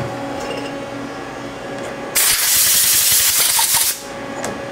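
Compressed-air blow gun blasting into the lathe's chuck area: a loud hiss that starts about two seconds in and stops after about two seconds, over a steady machine hum.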